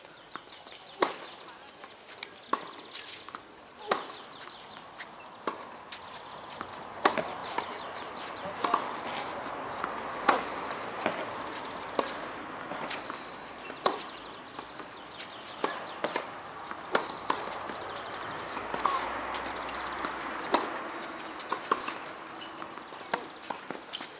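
Tennis rally on a hard court: a string of sharp hits of ball on racquet strings and ball bouncing on the court, roughly one every second, with a low murmur in the background.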